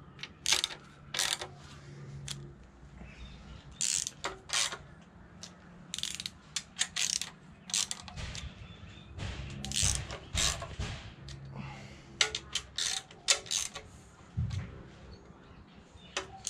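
Hand ratchet with a screwdriver-style handle, on an extension and socket, clicking in short bursts with pauses between them as oil pan bolts are snugged down lightly, about 5 ft-lb, one bolt after another.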